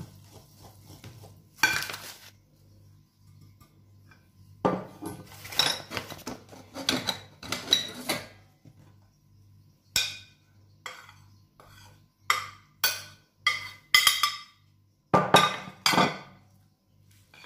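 Kitchen utensils scraping and clinking against a glass mixing bowl as batter is stirred, then a run of about nine sharp knocks as flour goes into the bowl.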